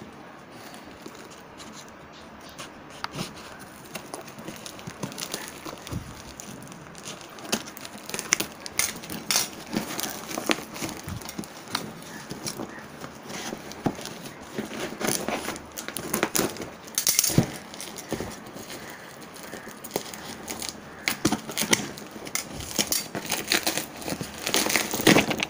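Parcel packaging and bubble wrap crinkling, crackling and tearing as the parcel is unwrapped by hand, in irregular rustles that grow busier and louder after the first several seconds.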